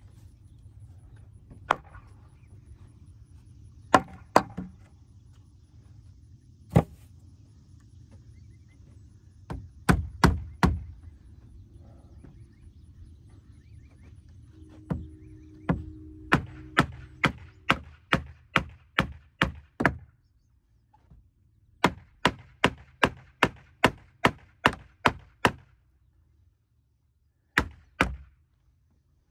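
Hammer blows on the weathered wood of an old swingset frame, knocking a board loose. A few scattered single blows come first, then two steady runs of blows about one and a half a second with a short pause between, and a last pair near the end.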